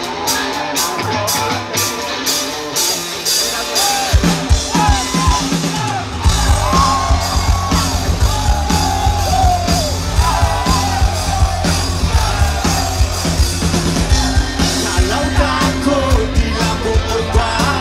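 Live rock band playing loud through a festival PA, heard from inside the crowd: drums and electric guitars with a singer, and the crowd yelling. The bass and kick drum come in heavily about six seconds in.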